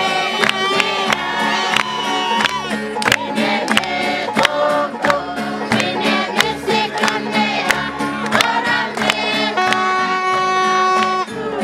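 A group of voices singing together to a steady beat of sharp strikes, two or three a second, over a constant low note. A few notes are held steady for a second or two near the end.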